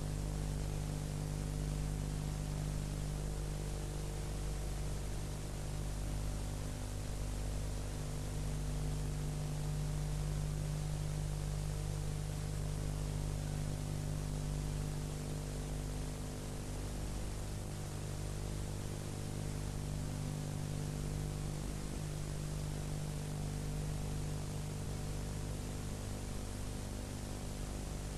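Steady electrical mains hum with hiss and no other sound: the noise floor of an old documentary film soundtrack transfer.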